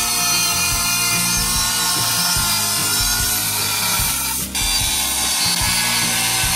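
Angle grinder with a diamond blade cutting through ceramic tile, a steady high-pitched whine with grinding noise, broken briefly about four and a half seconds in.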